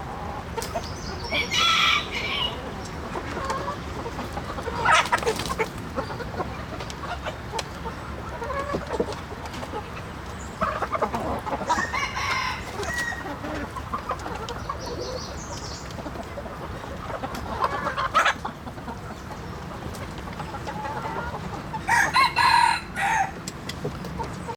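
Flock of chickens clucking, with a rooster crowing several times, a loud call every few seconds.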